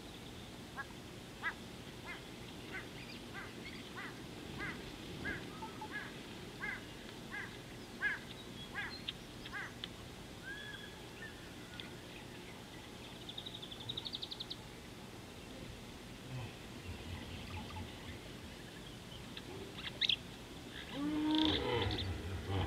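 A wild bird calling a short note over and over, about two calls a second, for roughly ten seconds, then a brief rapid high trill. Near the end comes a louder, lower sound.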